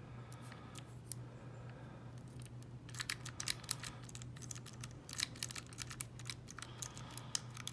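Snake rake being worked in and out of a Falcon small-format interchangeable core lock, its pin tumblers clicking. The clicks are faint and sparse at first, then come quickly and irregularly from about three seconds in.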